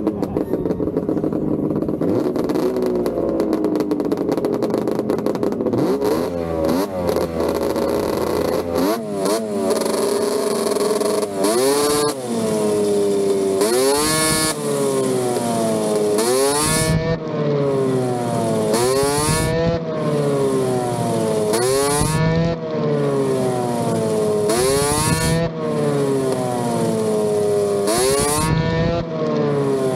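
Snowmobile engine idling, then from about a third of the way in blipped on the throttle over and over, the revs rising and falling back roughly every two to three seconds.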